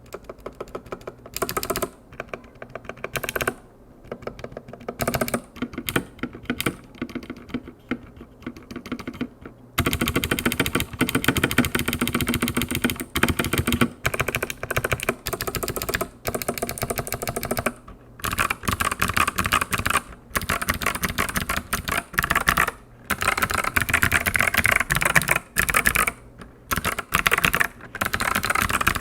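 Typing on a KPRepublic XD87 hot-swap mechanical keyboard with clicky Kailh Box Jade switches and PBT keycaps: rapid runs of sharp key clicks with brief pauses. The typing gets faster and louder about ten seconds in.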